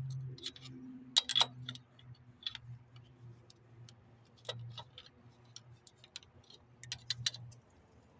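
Scattered sharp metallic clicks and clinks, irregularly spaced and loudest in a cluster about a second in, as a water pump and the tools on it are worked loose by hand; a low steady hum runs underneath.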